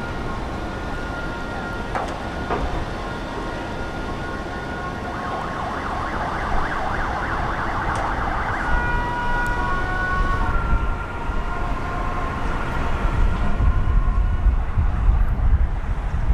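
Heavy excavator working, its diesel engine rumbling low under several steady high whining tones that come and go. A harsh, noisy scraping stretch runs from about six to nine seconds in.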